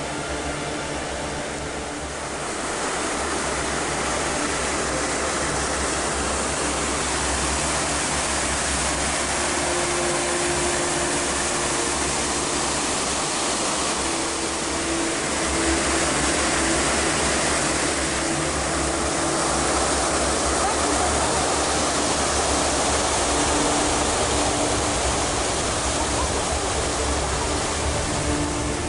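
The Saut du Doubs waterfall on the Doubs river: a loud, steady rush of falling and churning white water, a little louder from about two seconds in.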